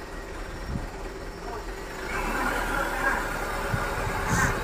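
A vehicle engine running steadily, with a few short knocks, and a louder rough noise joining about two seconds in.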